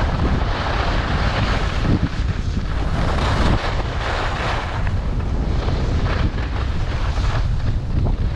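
Wind buffeting the camera microphone of a skier going downhill, a heavy steady rumble, with the hiss of skis on packed snow swelling and fading every second or so as the skier turns.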